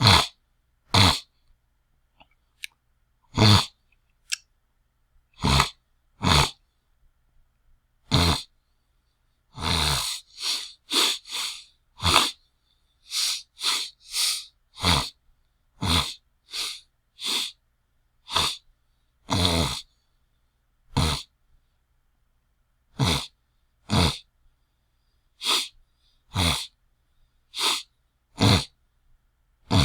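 A person scratching an itchy throat: short, harsh throat-clearing rasps, one after another with silent pauses between, some coming in quick pairs or clusters.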